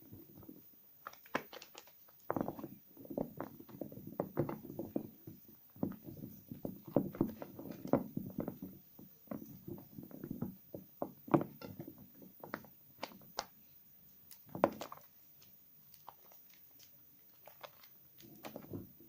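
Wet soap scraps being squeezed and rubbed in the hands to a lather: irregular soft squelches with sharp wet clicks, easing off for a few seconds near the end and then starting again.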